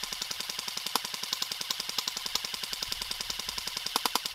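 CYMA PP-19 Bizon airsoft electric gun (AEG), fitted with an upgraded motor, firing one long full-auto burst: a fast, even stream of gearbox cycles and shots that cuts off suddenly near the end.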